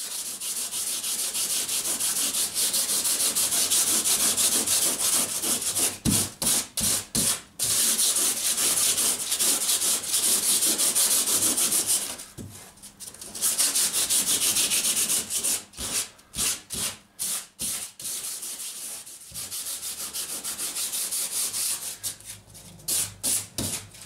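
Hand sanding with sandpaper on a block over cured epoxy and woven glass matting in a fibreglass boat's keel, a scratchy rasp of rapid back-and-forth strokes, feathering the trimmed mat edge flush. The sanding runs in long continuous spells with a brief pause about halfway, and breaks into separate quick strokes, several a second, later on.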